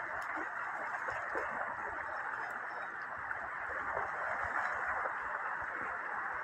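Steady rush of a shallow river running over stones.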